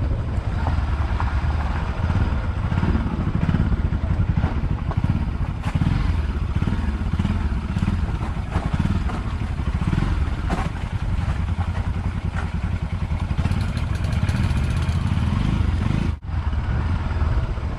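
Motorcycle engine running steadily while riding, with a low, uneven rumble throughout; the sound breaks off sharply about sixteen seconds in and resumes.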